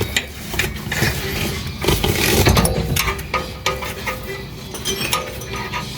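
Hand tools clinking and clicking on metal while the steering rack's mounting bolts are being fitted, with music playing in the background.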